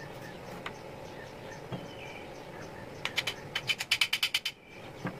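Small parts of an old electric drill's housing and switch being handled and pulled apart: a few single clicks, then a quick rattling run of about a dozen sharp clicks lasting a second and a half, starting about three seconds in.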